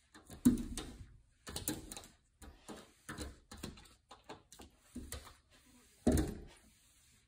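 A puppy pawing and bumping at a glass sliding door from outside, making a series of irregular thuds and rattles of the door in its frame, the loudest about half a second in and again near the end.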